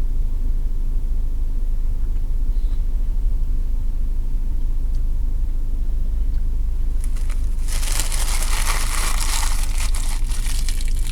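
Steady low rumble of a car idling, heard inside the cabin. About seven seconds in, a food wrapper crinkles and rustles for a few seconds.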